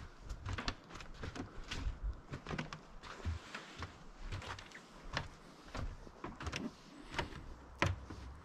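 Footsteps in snow: an irregular run of short crunches with soft low thumps.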